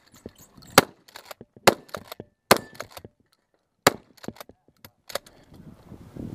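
Remington 870 Tactical 12-gauge pump shotgun fired in quick succession: five sharp shots about a second apart, the last one fainter, with the clack of the pump action being worked between them.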